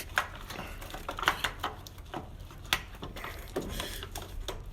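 Scattered plastic clicks and light taps as electrical connectors on the Honda S2000's engine wiring harness are handled and unplugged.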